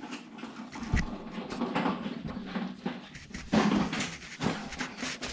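Hands working on a spark plug boot in a cramped ATV engine bay: scattered clicks, knocks and rustling, with a low thump about a second in, as the boot is pushed back on.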